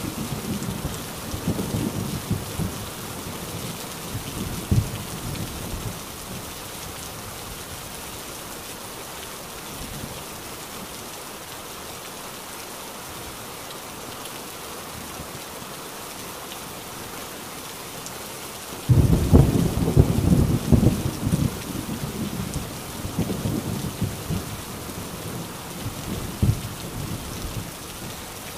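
Heavy rain falling steadily, with thunder rumbling for the first few seconds before fading. About two-thirds of the way through, a sudden clap of thunder breaks in and rumbles on in waves for several seconds.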